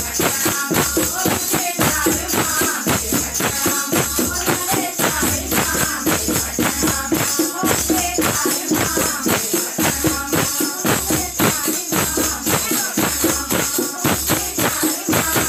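A group of women singing a Hindu devotional hymn together, kept in time by rhythmic hand-clapping and jingling percussion in a steady beat.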